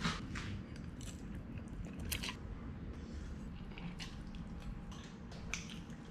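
Faint sounds of spaghetti being eaten from a ceramic bowl with a fork: chewing and a few soft clicks of the fork against the bowl, the sharpest about two seconds in.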